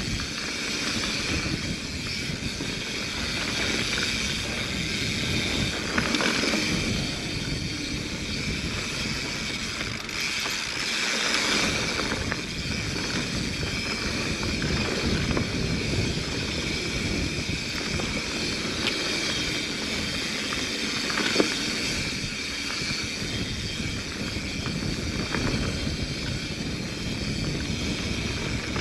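Mountain bike rolling down a dirt singletrack: the tyres crunch over dirt and stones and the bike rattles and clicks, with a couple of sharper knocks over bumps. Wind rumbles steadily on the camera's microphone.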